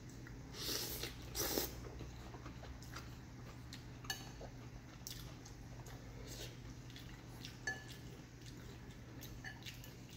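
Two loud slurps of soup noodles about a second in, then a fork's scattered light clinks and scrapes against a glass soup bowl.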